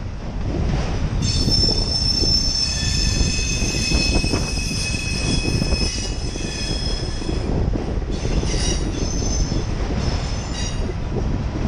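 Empty autorack freight cars rolling slowly past with steel wheels squealing: several high tones at once over a low rumble. The squeal starts about a second in, fades at about seven and a half seconds, and comes back in shorter squeals near the end.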